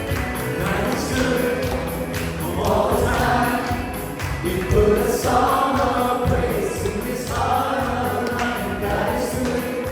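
Live praise-and-worship music: a group of singers with band accompaniment and a steady beat.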